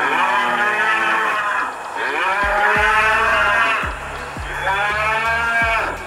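Cattle mooing: three long, drawn-out moos, the first running on from before and the next two about two seconds apart, over background music with low beats.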